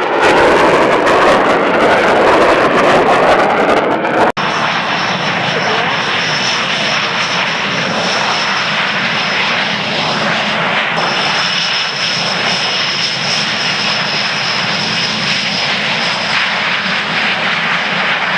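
Panavia Tornado GR4's twin RB199 turbofans. First a loud jet pass overhead, its noise sweeping in pitch as it goes by. Then, after an abrupt cut about four seconds in, the jet on the ground, its engines running with a steady high whine over a rumble.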